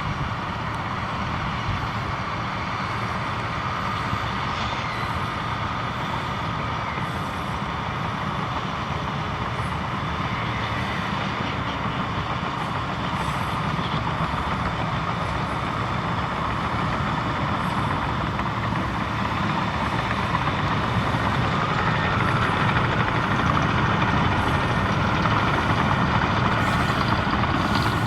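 Komatsu crawler bulldozer at work: its diesel engine runs steadily under load, with a high whine and faint clicks from the running gear. It grows a little louder over the last third.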